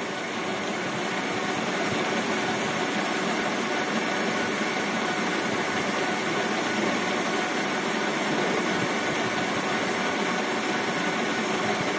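Victor lathe running: a steady mechanical whirr, getting a little louder over the first two seconds and then holding even.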